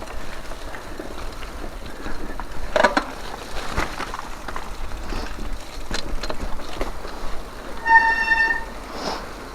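Mountain bike riding on a dirt trail: steady tyre and wind noise with scattered rattles and knocks from the bike. About eight seconds in, a short steady beep sounds.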